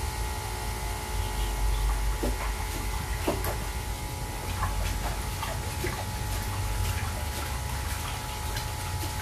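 Water sloshing and splashing in a stainless steel sink as a long-haired cat standing in it is rinsed by hand, in short irregular splashes over a steady low hum.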